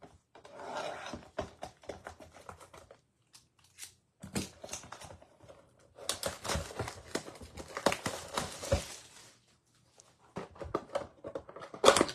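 Plastic wrapping crinkling and tearing in several bursts as a sealed box of trading cards is opened, the longest burst lasting about three seconds. Lighter taps and rustles of the packs being handled follow near the end.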